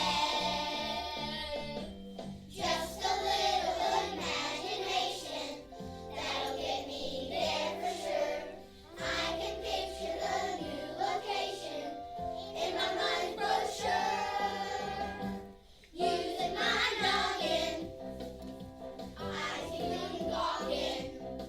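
A group of young children singing a song together over a musical accompaniment.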